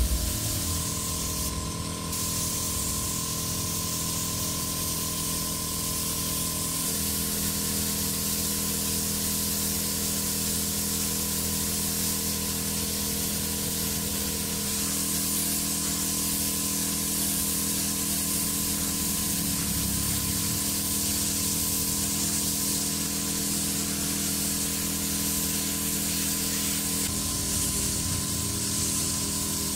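Steady hiss of paint being sprayed onto a motorcycle engine cover, with a steady low hum underneath.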